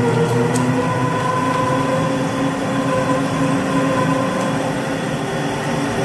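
Electric meat grinder running steadily under load, a constant motor hum, as beef is pushed down its feed throat with a wooden pusher and ground into mince for sucuk.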